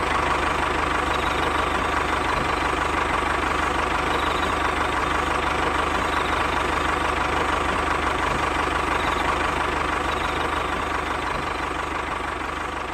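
The motor of a homemade model tractor running steadily as the tractor drives along, a dense mechanical buzz with a steady whine. It fades somewhat over the last few seconds as the tractor moves away.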